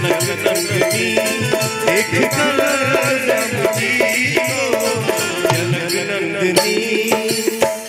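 Live band music for a Bhojpuri Ram bhajan: percussion keeps a quick, steady beat under a melody line.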